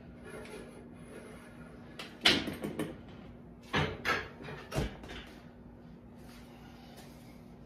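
Metal clanking from a home gym cable machine: one loud clank with a short rattle about two seconds in, then three shorter knocks over the next second or so, as the weight stack and handle are let go. A steady low hum runs underneath.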